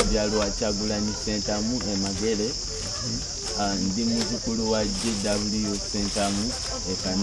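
Crickets giving a steady high-pitched trill that does not let up, under a man's speech.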